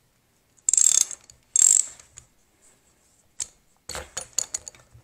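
Ratchet wrench with a 19 mm deep-well socket clicking as it turns out a water temperature sensor. There are two quick, loud runs of clicks about a second in, then a string of separate clicks near the end.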